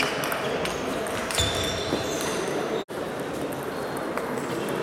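Table tennis balls clicking off bats and tables, a few scattered hits over the steady noise of a large hall with several games going on. The sound drops out for an instant a little under three seconds in.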